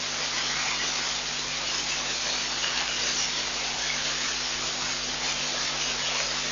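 Steady hiss with a faint low electrical hum beneath it: the background noise of a live wildlife webcam's audio feed, with no distinct events.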